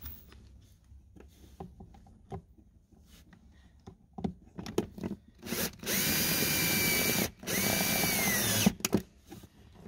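Angle driver's motor whining as it drives a self-tapping screw, in two runs about halfway in: one of about two seconds, a short break, then one of about a second whose pitch drops as it winds down. Light handling clicks come before.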